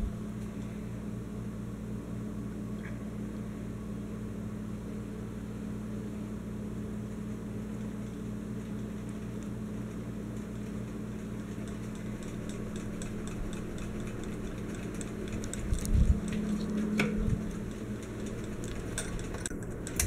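Encon Casanova ceiling fan running, its motor giving a steady hum. About sixteen seconds in there is a brief louder spell ending in a click, and another click comes near the end.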